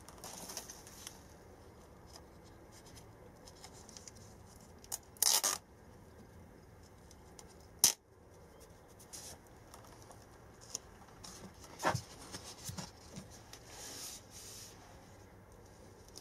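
Quiet handling sounds of a sticky paper label being peeled and pressed onto a small plastic plant pot: a few short rustles and clicks, the loudest a brief rustle about five seconds in and a sharp click near eight seconds.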